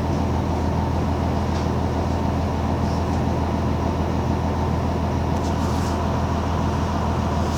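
Mercedes-Benz OF-1721 bus's OM-366LA six-cylinder turbodiesel running steadily, a constant low engine drone with no change in pitch.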